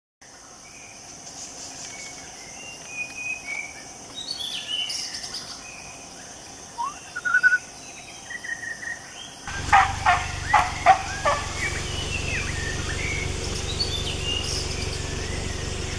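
Forest birds chirping and whistling over a steady high insect drone. About halfway through comes a quick run of louder, sharp notes, and a low steady hum sets in.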